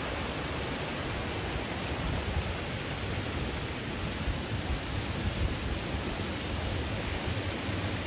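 Steady rush of the Minoo River's mountain stream running over rocks, with an uneven low rumble underneath.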